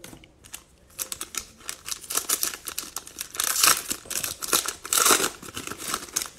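The foil wrapper of a Mosaic football cello pack being torn open and crinkled by hand: a run of crackling rustles, loudest about three and a half and five seconds in.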